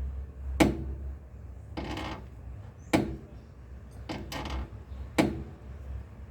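Rear suspension of a 2010 Hyundai i30 creaking and knocking as it is worked up and down, a sharp knock followed by a longer creak, repeating about every two seconds: the sign of a worn rear control-arm bushing.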